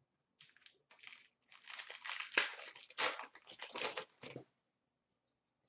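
Plastic wrapper of an Upper Deck hockey card pack crinkling as it is torn open by hand, a run of rustles over about four seconds.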